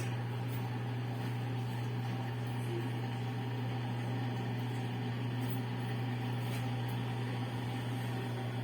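Whirlpool washing machine running, a steady electric motor hum with an even whir above it and no change in pitch.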